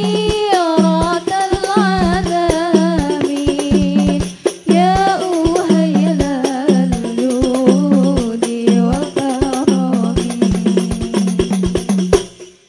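Hadroh sholawat music: women singing an ornamented devotional melody into microphones over a steady beat of hand-struck frame drums (rebana). The song breaks briefly about four seconds in, then the music stops shortly before the end.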